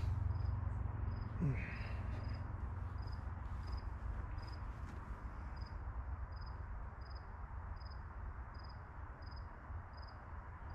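A cricket chirping steadily, about two short high chirps a second, over a low background rumble.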